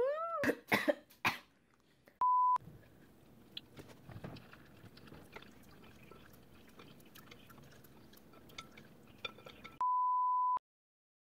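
Two steady single-pitch electronic beeps, the kind edited in as a censor bleep: a short one about two seconds in and a longer one of nearly a second near the end that cuts off abruptly. Before the first, a person's voice rises in pitch among a few sharp clicks. Between the beeps there is faint room noise with small clicks and taps.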